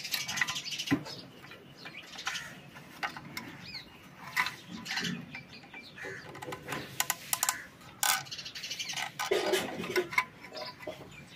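Irregular clicks and light knocks of an electric iron's plastic body being handled and seated onto its metal soleplate, with birds chirping in the background.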